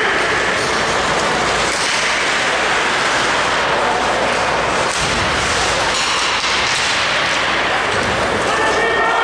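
Steady, loud rushing ambience of an ice hockey rink during play, with faint voices in it.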